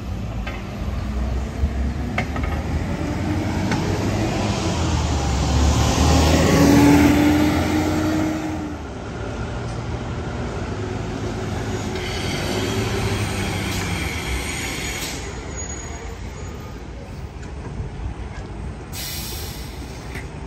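A tram running past on its rails, loudest about six to eight seconds in and then fading away.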